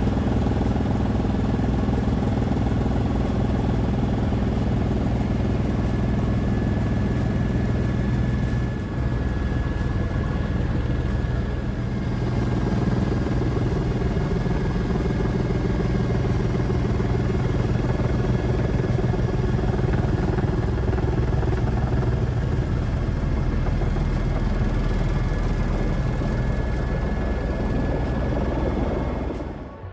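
An engine running steadily, its tone shifting about nine seconds in, then cutting off abruptly near the end.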